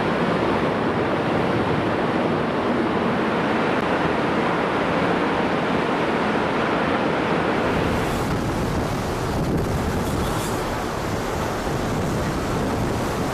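Sea water rushing and churning between the hulls of two ships steaming side by side, with wind buffeting the microphone. About eight seconds in the wash turns brighter and hissier.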